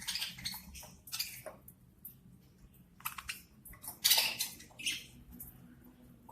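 Budgies feeding: irregular scratchy clicks and rustles of beaks pecking and crunching food, loudest about four seconds in.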